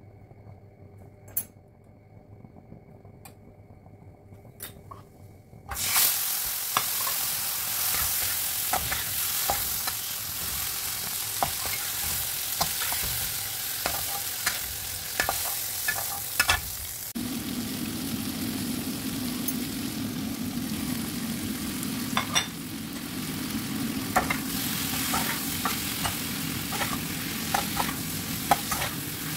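Prawns frying in hot oil in a non-stick pan. The oil ticks faintly at first, then loud sizzling starts suddenly about six seconds in, with the plastic spatula scraping and tapping against the pan as the pieces are turned. About halfway through a lower steady hum joins the sizzle as cauliflower and vegetables are stir-fried.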